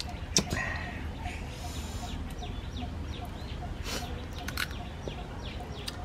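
Birds chirping in the background, many short falling calls. Crab shell being cracked apart by hand gives a sharp crack about half a second in, and two more near four seconds in.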